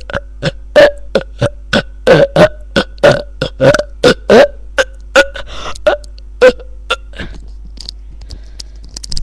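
A rapid string of short, loud burps, about three a second, thinning out after about five seconds.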